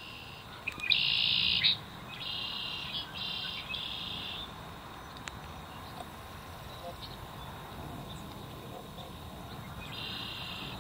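Short, high, buzzy trilled calls of a small animal: four in quick succession in the first half, the first the loudest, and one more near the end.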